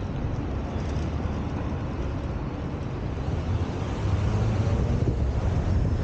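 Car driving in city traffic, heard from a camera mounted on its roof: steady road and traffic noise with a low rumble that grows louder about four seconds in.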